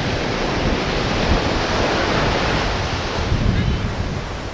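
Ocean surf washing onto the beach, a steady rush that swells and eases off toward the end, with wind buffeting the microphone.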